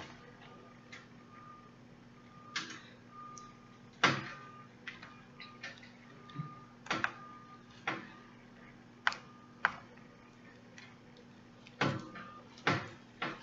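Irregular soft clicks and taps from hand-sewing hair wefts onto a wig cap on a mannequin head: needle, thread and fingers working at the cap, a dozen or so separate ticks, with a faint steady hum underneath.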